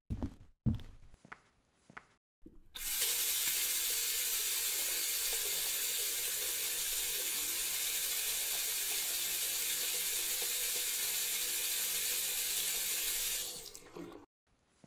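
Kitchen tap running water into a frying pan in a stainless steel sink: a steady rush that starts about three seconds in and stops near the end. A few short knocks come before it.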